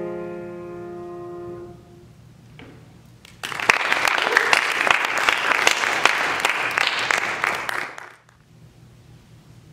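The last chord of a grand piano piece ringing out and dying away, then audience applause starting about three and a half seconds in and cutting off suddenly near the end.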